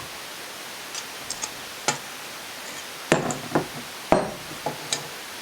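Small metal engine parts and hand tools being handled on a workbench: a few light metallic ticks, then several louder clanks and clunks in the second half.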